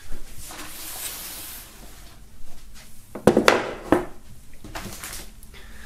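Hands handling a wooden album box and its contents: a rubbing slide first, then a few sharp wooden knocks about three to five seconds in as the wooden lid is set on the box.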